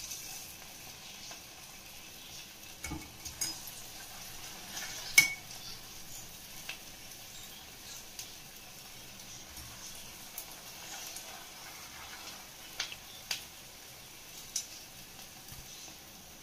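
Semolina (rava) balls deep-frying in hot oil in an aluminium kadai, a steady sizzle from the freshly added dough. A few sharp clicks stand out over the sizzle, the loudest about five seconds in.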